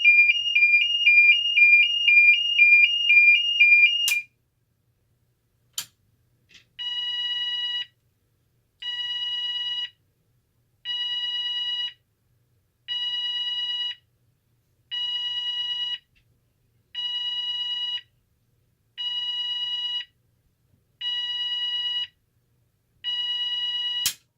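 Cooper MIN-T fire alarm sounder: a fast two-pitch warble that cuts off with a sharp click about four seconds in. After another click it sounds a different tone, pulsed about one second on and one second off, nine times, before a final click near the end.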